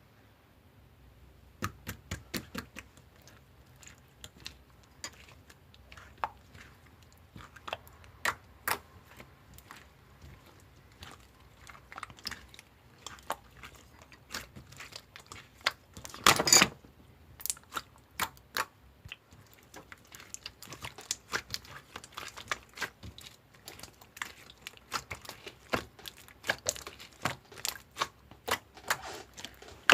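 Slime being squeezed and poked by hand: irregular sticky clicks and pops, with a longer, louder squelching crackle about sixteen seconds in.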